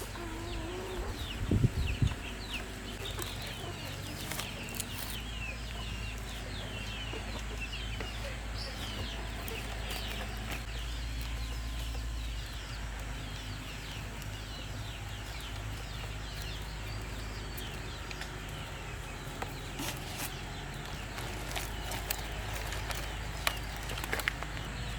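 Chickens clucking, with many short high chirps that are thickest through the first half and a couple of sharp knocks about two seconds in.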